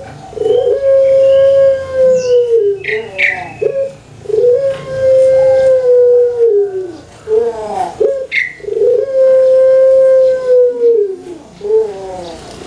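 Puter pelung dove (Barbary dove, Streptopelia risoria) cooing three times. Each call opens with short notes, then holds one long, steady coo of about two to three seconds that drops in pitch at the end.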